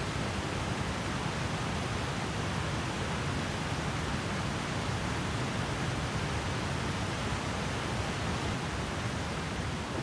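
Steady rushing of a small mountain stream cascading over rocks, an even hiss with no breaks.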